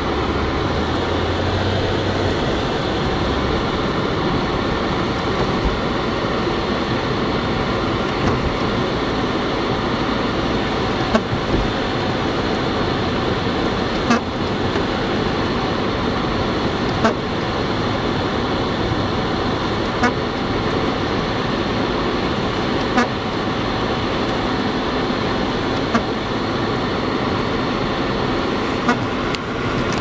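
Steady in-car noise from a car on a snowy road, with a short clunk from the windshield wipers about every three seconds as they sweep on an intermittent setting.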